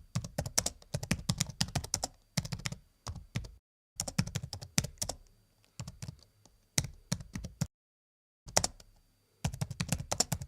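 Quick, irregular clicks and taps, several a second like typing, broken twice by brief dead-silent gaps where the sound is cut.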